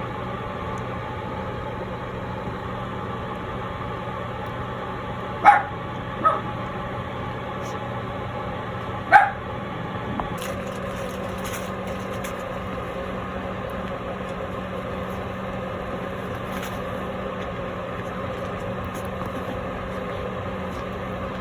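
Toy poodle puppy giving three short barks, two close together and a third a few seconds later, over a steady background hum.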